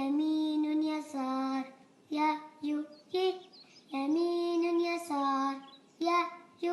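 A child's voice singing an Arabic letter-sounds chant without instruments, alternating long held notes with short clipped syllables.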